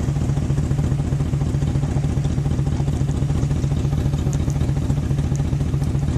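A motor vehicle engine idling steadily with a low, rapid pulsing rumble, and a few faint high chirps in the second half.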